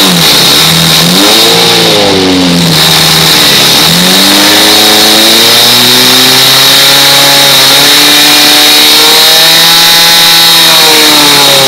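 A portable fire pump's engine is revved up and down several times, then held at high revs, with its pitch dropping near the end. A steady high whine runs over the engine sound.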